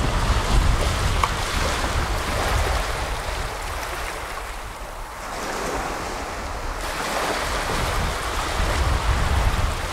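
Small waves breaking and washing up a flat sandy shore, swelling twice, once early and again near the end, with a quieter lull between. Wind rumbles on the microphone underneath.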